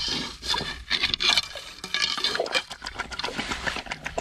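Quick, irregular clicking and scratching from inside a lobster hole under a rock ledge as a stick probes the sand and gravel. The forager takes the sound for a lobster hiding in the hole.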